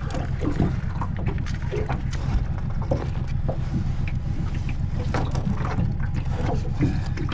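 Steady low rumble of wind buffeting the microphone, with many short scattered knocks and scrapes from the crab being grappled at close range.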